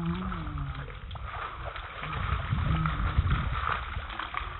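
Bare feet stamping and splashing through shallow standing water on a flat concrete roof, a run of uneven wet slaps and thuds, with a child's voice briefly at the start.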